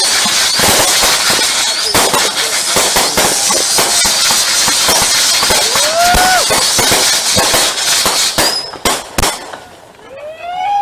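Aerial fireworks: dense crackling and popping, with a rising whistle about six seconds in. A few sharp bangs come near nine seconds, then a brief lull, and several whistling fireworks rise and fall near the end.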